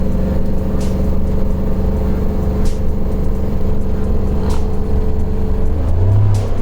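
Vehicle engine and road noise heard from inside the cab while driving, a steady low drone whose engine note rises near the end. Faint clicks come roughly every two seconds.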